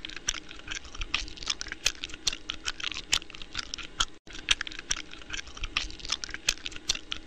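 Crunching and gnawing of a man chewing on a bone: irregular crisp cracks several times a second over a low hum, with a brief break about four seconds in.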